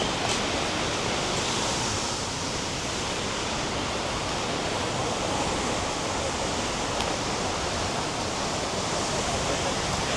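A waterfall's steady rush of falling water, an even noise that does not let up.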